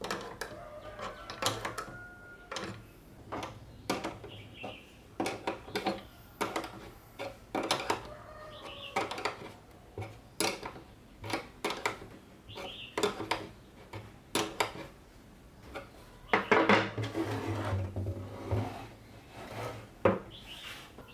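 Irregular clicks, knocks and light clatter of hard parts being handled, with a louder stretch of rubbing or scraping near the end.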